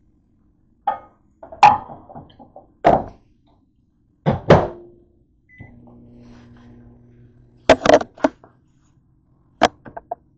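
Knocks and clatter of a phone camera being handled and set down on a kitchen counter. About halfway, a short beep and then a microwave oven starts running with a steady low hum.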